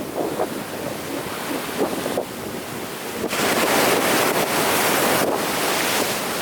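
Big ocean surf. A wave breaks about three seconds in and its loud rush of whitewater runs on for a few seconds before easing.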